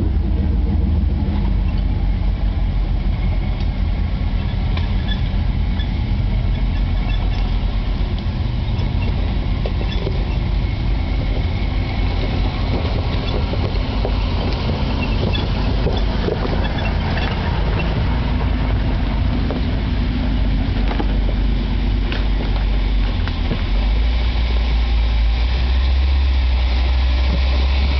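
Off-road 4x4 engines running at low, crawling speed as the vehicles come down a small rock ledge one after another. The engine rumble grows louder in the last few seconds as one vehicle passes close.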